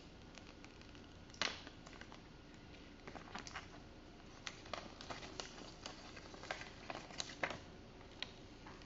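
Thin clear plastic protective film being peeled off a new iPhone XS Max, crinkling faintly with scattered light clicks and crackles; the sharpest click comes about a second and a half in, with a few more near the end.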